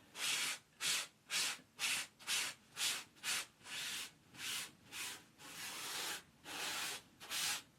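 Stiff washing-up brush scraping up and down over a fabric pet bed to lift off cat hairs, in even strokes about two a second.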